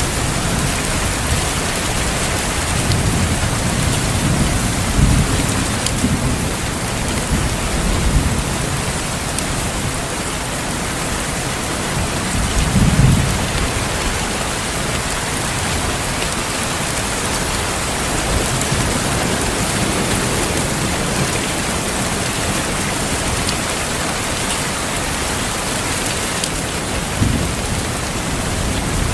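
Steady rain with low rumbles of thunder rising and fading several times, the strongest about 13 seconds in.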